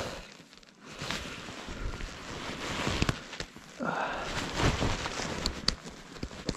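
Rustling and crunching in wet snow as a fallen skier moves to get back up, with a few short knocks.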